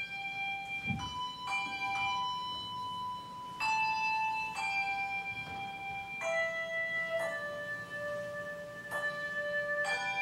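Handbell choir ringing a slow tune in chords, a new chord struck every second or so and each ringing on until the next.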